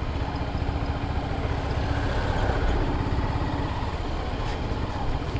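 Motorcycle engine running steadily at low speed while the bike rolls along in slow traffic, with road noise underneath.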